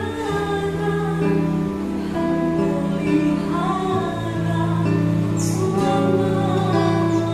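A woman singing a slow Indonesian worship song, accompanied by strummed acoustic guitar.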